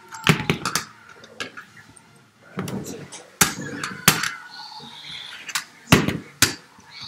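Plastic toy dinosaurs clacking against each other and knocking on a wooden floor in a pretend fight: many sharp knocks at uneven intervals, the loudest about six seconds in.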